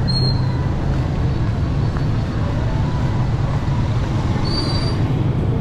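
Road traffic on a busy street: a steady low rumble of passing vehicles' engines. Two short high squeaks sound, one right at the start and one near the end.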